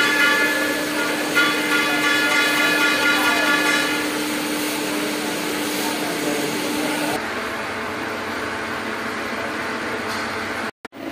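CNC lathe running with a steady machine hum and a high whine of several even tones. The whine fades about four seconds in, and the sound changes character about seven seconds in. It cuts out briefly near the end.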